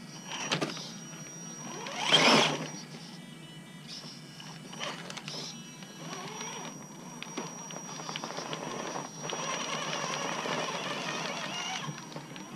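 Gmade GOM RC rock crawler's electric motor and gearbox whirring as it crawls over rocks, in uneven spurts, with a loud knock or scrape about two seconds in and a steadier, louder whir in the last few seconds.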